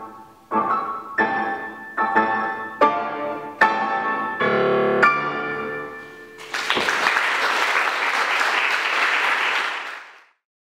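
Grand piano played in a run of struck chords, one about every second, ending on a held final chord. About six and a half seconds in, audience applause starts and carries on for a few seconds before fading out.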